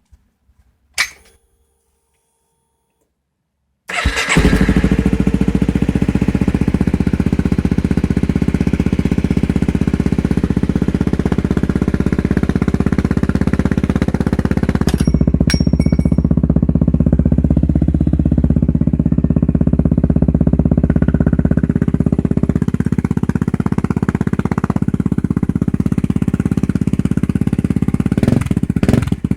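Honda CRF250L's single-cylinder four-stroke engine running steadily through an aftermarket Yoshimura RS4 exhaust. After a few faint clicks and a silent gap, the engine sound starts about four seconds in and stays at an even level.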